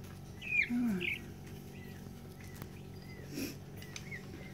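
Indian peafowl chick peeping: short, thin arched peeps that repeat about twice a second.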